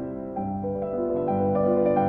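Background piano music: soft sustained notes, with a new note or chord about every half second.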